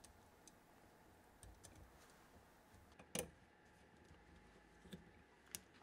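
Near silence with a few faint clicks of small metal parts as the choke housing's hold-down clamps and screws are fitted and turned with a screwdriver on the carburetor. The clearest click comes about three seconds in, with two smaller ones near the end.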